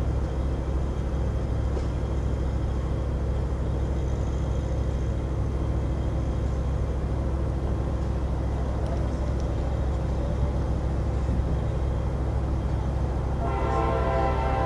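NJ Transit train horn sounding a chord over a steady low rumble. The horn stops about half a second in and sounds again near the end.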